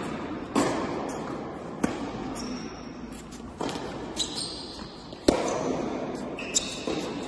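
Tennis ball struck by rackets and bouncing on an indoor hard court: four sharp pops spaced a second or two apart, each ringing briefly in the hall, the loudest about five seconds in. Short high squeaks of tennis shoes on the court come between the hits.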